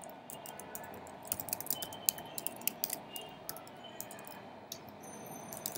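Typing on a computer keyboard: quick, irregular keystrokes in uneven runs with short pauses.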